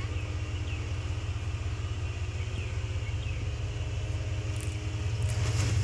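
Off-road trial vehicle's engine running steadily at low revs, a low rumble that grows a little louder near the end.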